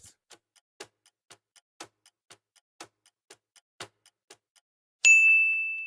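Clock-tick countdown sound effect of a quiz timer, about four light ticks a second, then a single bright bell ding about five seconds in that rings and fades: the signal that time is up.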